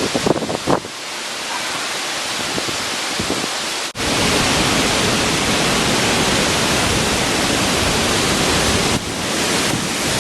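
Stormy wind rushing and buffeting the microphone. About four seconds in it cuts abruptly to a louder, deeper rush.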